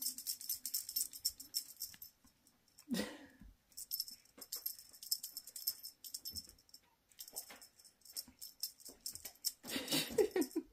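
High, jingling rattle of a shaken cat toy, coming in stretches of a second or two, with a brief voice about three seconds in.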